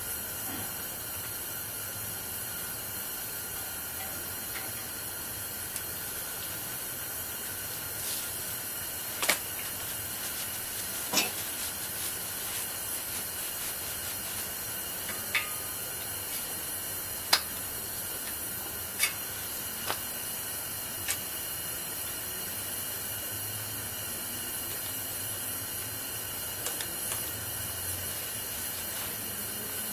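Steady hiss from a portable gas radiant heater burning, with scattered light clicks and taps from hands working at the snowblower.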